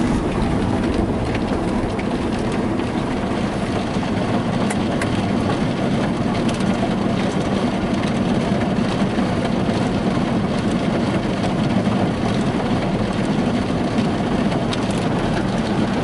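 Ryko Softgloss Maxx 5 automatic car wash working over a pickup truck: a steady rush of water spray and wash machinery, muffled through the closed cab.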